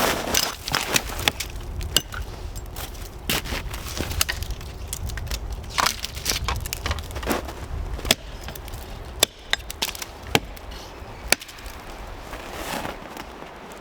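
Wood being chopped and broken: irregular sharp cracks and knocks, about one every second or two, over a steady low rumble.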